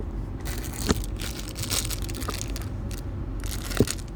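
Thin plastic wrapper crinkling as it is handled, with two short knocks, one about a second in and one near the end.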